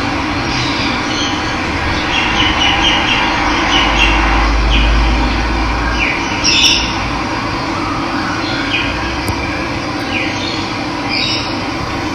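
Steady rush of running water with small birds chirping over it in short, falling calls again and again, one louder call about six and a half seconds in.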